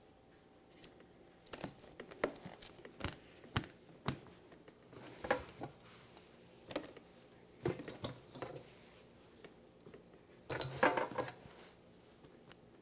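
Scattered soft taps and rustles of hands handling a cloth kitchen towel and laying rinsed eggplant slices from a metal colander onto it, with a louder burst of clatter about ten and a half seconds in.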